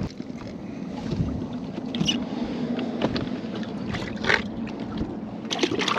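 A walleye being lowered into a fishing boat's livewell: a few short knocks and splashes over a steady low hum.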